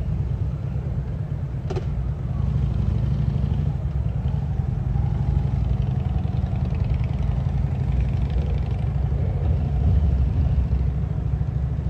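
Steady low rumble of street traffic, with one sharp click about two seconds in.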